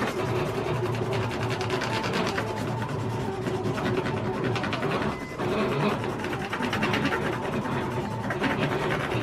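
Rapid scratchy rubbing of a hand-held burnishing tool scraped back and forth over transfer tape on a vinyl decal, pressing the cut vinyl onto the tape. The strokes come fast and steady, with a brief pause a little after five seconds.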